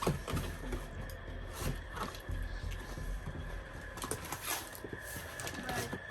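Handling of plastic vacuum cleaner parts and packaging: scattered light clicks and rustles, with a faint steady high-pitched hum underneath.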